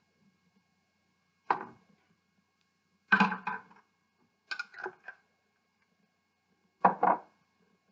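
Kitchen utensils and containers being handled on a counter: four separate knocks and clatters a second or two apart.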